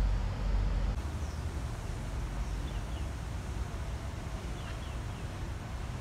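Outdoor park ambience: wind rumbling on the microphone for about the first second, then a steady background hiss with a few faint, short bird chirps.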